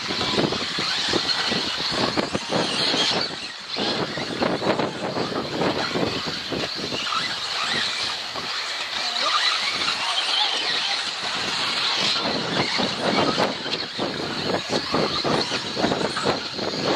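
Radio-controlled 4WD off-road buggies racing around the track: a steady high whine under a dense, continuous clatter of small knocks and clicks.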